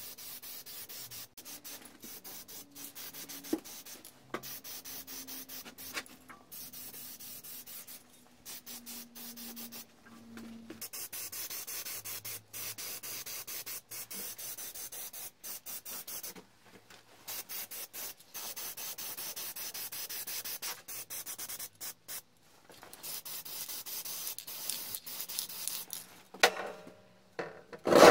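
Aerosol spray paint can hissing in repeated short bursts. Near the end comes a louder scrape and a couple of knocks as the small steel anvil is shifted on the concrete floor.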